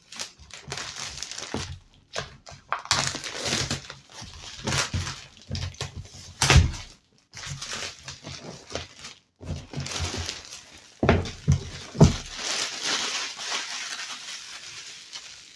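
Cardboard keyboard box and its packaging being opened and handled: irregular scraping, rustling and crinkling, with a few sharp knocks.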